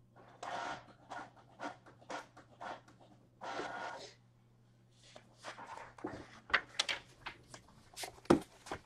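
Two soft rustles, then a run of small irregular clicks and knocks, over a steady low hum.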